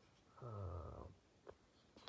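A man's short, low, closed-mouth "hmm", about half a second long, followed by a faint click.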